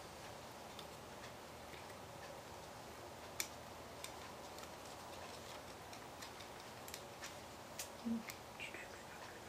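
Small clicks and taps from hands handling wires and a small switch, over a faint steady hiss; the sharpest click comes about three and a half seconds in, with a short run of clicks and a dull knock near the end.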